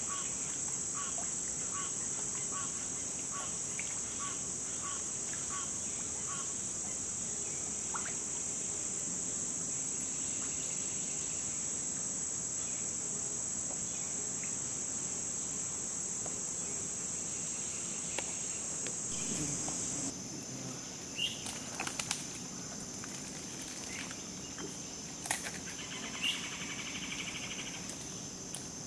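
Steady, high-pitched insect chorus. Over the first several seconds a short call repeats about twice a second. About two-thirds of the way in the chorus drops slightly in pitch, and a few sharp clicks follow.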